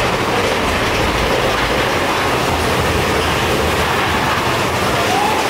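Big Thunder Mountain Railroad's mine-train roller coaster running along its track: a steady, loud rumble and clatter of the cars on the rails.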